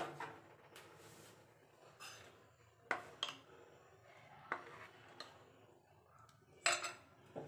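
A few light clicks and clinks of kitchen utensils and dishes being handled, scattered a second or so apart, with a short cluster near the end.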